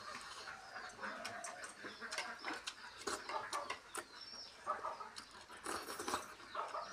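Faint animal calls, like domestic fowl, scattered among many light clicks.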